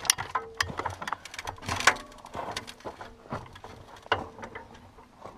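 Irregular knocks, clicks and scuffs as a person climbs down from a stopped rail vehicle onto gravel.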